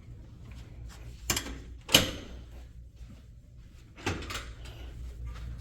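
A few sharp knocks and clunks of things being handled, like a drawer or door, the loudest about two seconds in and another group about four seconds in, over a steady low hum.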